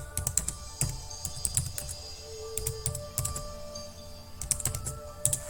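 Typing on a computer keyboard in several short bursts of keystrokes, with quiet background music underneath.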